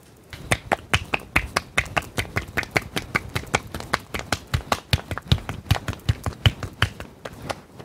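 Hands slapping a ball of atta dough back and forth between the palms to shape a thick hand-made tikkar flatbread: quick, even slaps, about five a second.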